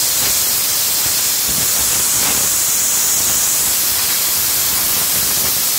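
Compressed-air blow gun with a rubber tip blowing a steady loud hiss of air along a welded seam, the air-hose method for finding pinhole leaks in the weld.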